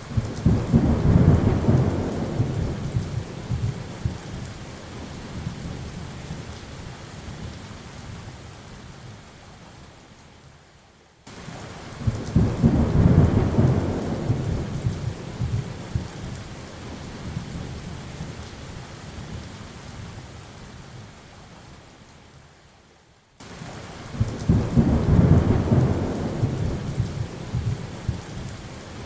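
Rain falling steadily with three long rolls of thunder about twelve seconds apart. Each comes in suddenly, is loudest a second or two later and dies away over several seconds.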